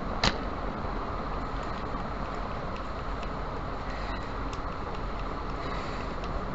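Steady rushing background noise, with one sharp click just after the start and a few faint light taps as small parts and tools are handled at a television circuit board.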